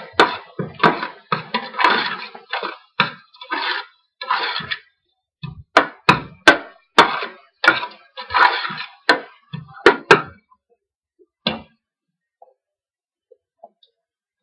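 Metal spoon stirring and scraping sautéing onions, garlic and chilies in a stainless steel pot: a quick run of scraping strokes, each starting with a sharp clack against the metal. The stirring stops about ten seconds in, and one more stroke follows a little later.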